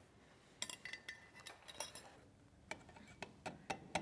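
Scattered light metallic clinks and taps of tools and axle parts being handled, a few of them ringing briefly.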